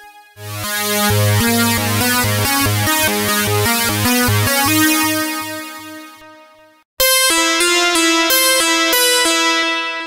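Roland JUNO-60 software synthesizer playing two demo phrases on lead patches from a synth-pop soundbank. A melodic line over a pulsing bass note fades out about seven seconds in. A brighter lead phrase on the next patch then starts abruptly.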